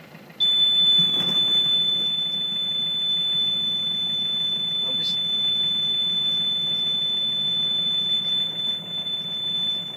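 Kubota tractor's PTO engaging and driving a rotary slasher as it starts up: a sudden jump to a loud, steady mechanical running about half a second in, with a steady high-pitched whine over it.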